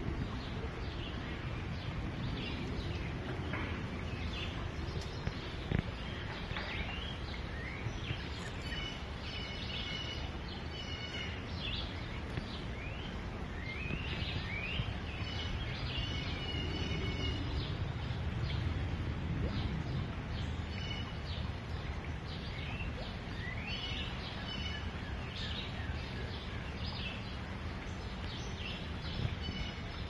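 Steady rushing hiss of a small forest stream with birds calling and chirping over it in short repeated phrases, some rising and some falling in pitch. A brief knock about six seconds in.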